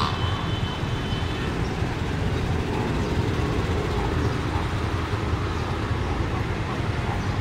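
Steady low rumble of outdoor background noise, of the kind that distant road traffic makes.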